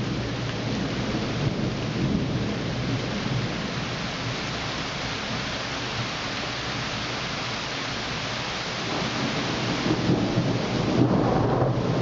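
Steady rain falling in a thunderstorm, with thunder rumbling that swells about ten seconds in.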